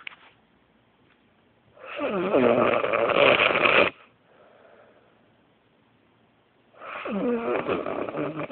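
Very loud snoring from a sleeper: two long snores about five seconds apart, each lasting about two seconds and starting with a falling pitch, with a faint breath out between them.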